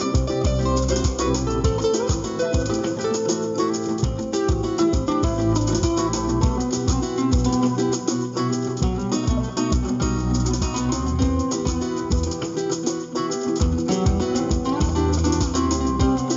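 Acoustic guitar improvising flamenco-style in the A natural minor scale: a steady stream of quick plucked notes mixed with sharp strummed attacks.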